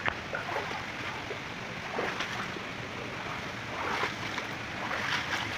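Steady rushing water noise from muddy floodwater after heavy rain, with a few faint splashes.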